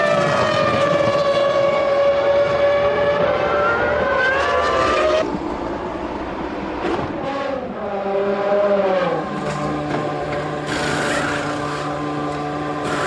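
Formula One 3.0-litre V10 engines at racing revs: a loud high-pitched engine note dips and then climbs again, then about five seconds in the sound changes abruptly to a quieter engine note that glides about before settling into a steady lower drone.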